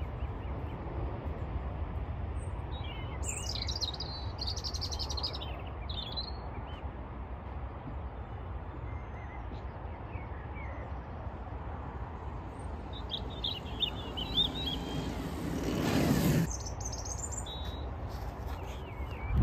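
Small birds chirping in short bursts over a steady low rumble; then a Sinclair C5 electric tricycle passes close by, its noise rising over a couple of seconds and cutting off suddenly.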